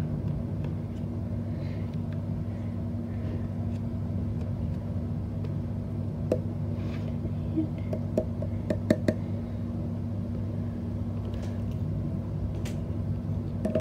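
A steady low hum, with a few light clicks of a plastic spoon at a toy doll's mouth between about six and nine seconds in.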